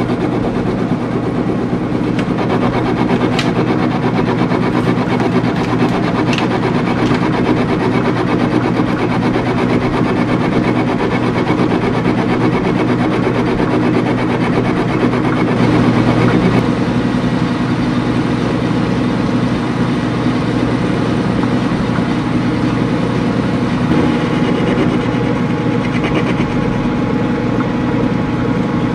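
Metal lathe running, turning an offset stud held in a four-jaw chuck with the cutting tool on the work: a steady machine drone, with a couple of faint clicks early on.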